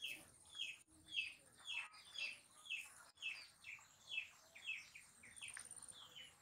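A bird calling over and over: a short chirp that falls in pitch, repeated about twice a second.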